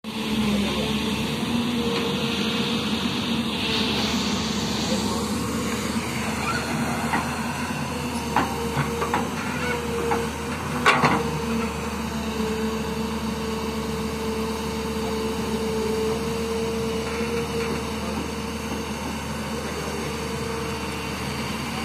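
Hyundai crawler excavator running steadily while digging, its engine hum carrying a steady whine. There are a few short knocks a little past the middle, the loudest about 11 s in.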